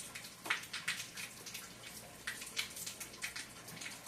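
Rain falling, with water dripping and splashing off a wet roof in irregular drops over a faint steady patter.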